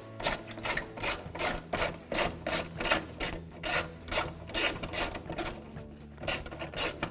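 Hand ratchet with a 10 mm socket and extension ratcheting in quick back-and-forth strokes as bolts are backed out, about three rasps a second, with a brief pause about six seconds in.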